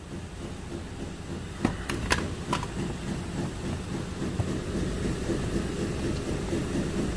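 Steady low rumble, with a few short sharp clicks about one and a half to two and a half seconds in.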